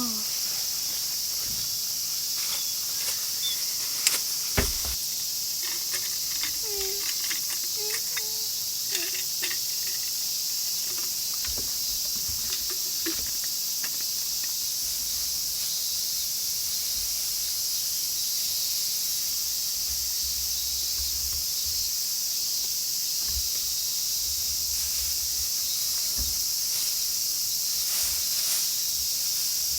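Continuous chorus of crickets and other insects, a steady high-pitched chirring hiss, with a few sharp clicks about four seconds in.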